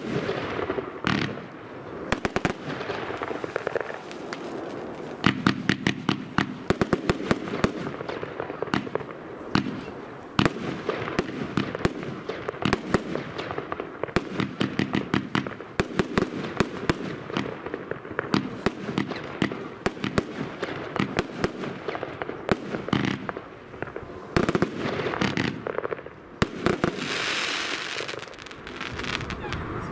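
Heron Professional Powerbox 1 fireworks compound, four linked 25 mm batteries firing: many sharp shots and shell bursts in quick succession over a steady crackle. A loud surge of crackling hiss comes near the end.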